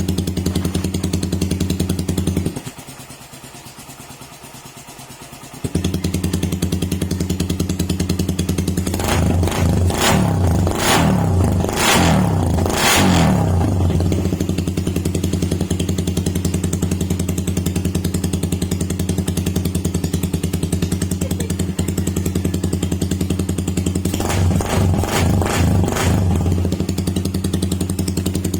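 Suzuki Raider 150 single-cylinder four-stroke engine through a freshly fitted open-spec elbow and aftermarket exhaust, idling steadily. It is blipped in a series of short revs about a third of the way in, and again near the end. The sound drops much quieter for about three seconds early on, then comes back suddenly.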